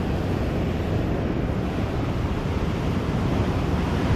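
Heavy surf breaking and washing over shoreline rocks in a steady rush, with wind buffeting the microphone.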